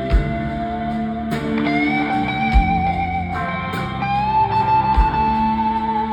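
Live rock band playing an instrumental guitar break: an electric lead guitar holds long notes and bends up into new ones over the band, with a bass-drum thump about every two and a half seconds.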